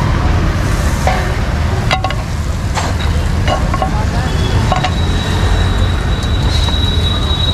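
Butter and beaten egg mixture sizzling on a hot griddle, with several sharp clinks of a metal utensil, over a steady low rumble of street traffic. A thin, steady high whine sets in about three seconds in.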